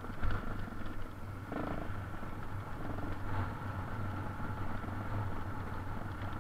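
Yamaha TT600R's single-cylinder four-stroke engine running at a steady low rumble while the bike rides a dirt trail, heard through the bike-mounted camera, with a thump about a quarter second in.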